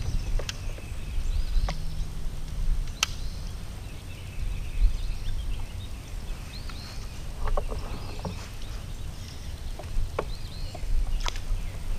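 Steady low rumble of water moving past a Hobie pedal kayak's hull as it travels, with a few sharp clicks and faint bird chirps.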